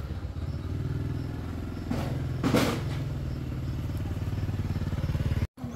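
A small engine running steadily with an even, rapid pulse and a brief noisy burst about halfway through; the sound cuts out for a moment near the end.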